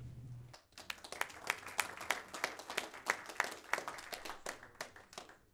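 Audience applauding, with separate claps audible, starting about half a second in and dying away near the end.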